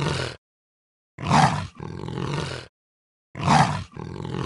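Snow leopard calling, the same two-part call repeated: a short, loud first part, a brief break, then a longer, softer part. One call is ending at the start, a full call comes about a second in, and another begins about three and a half seconds in.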